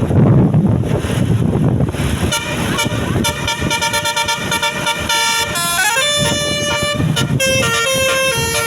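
A bus's 'telolet basuri' multi-tone air horn playing a melody of held notes that step up and down in pitch, starting about two seconds in after a low rumble of wind and traffic.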